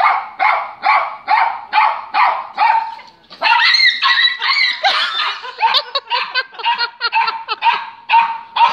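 Small dog barking repeatedly, about two sharp barks a second, breaking into a denser, almost unbroken run about three seconds in, then fast separate barks again.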